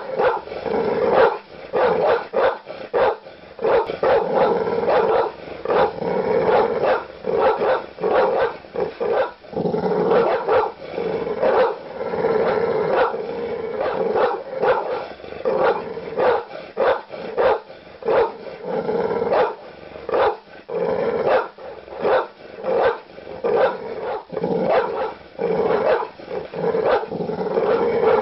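Large dog barking aggressively in deep barks, one after another, with almost no pause.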